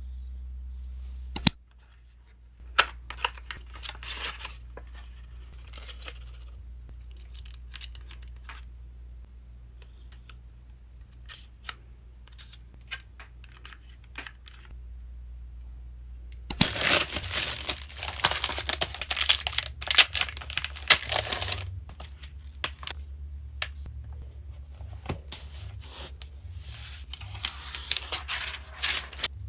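Packaging being unwrapped by hand: scattered crinkles and taps, then several seconds of dense tearing and crinkling of wrapping a little past halfway, with more crinkling near the end.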